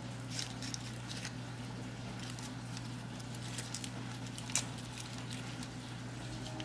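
Faint scattered clicks and light rustling of a kitchen knife prying soft roasted garlic cloves out of their papery skin, with one sharper click about four and a half seconds in. A steady low hum runs underneath.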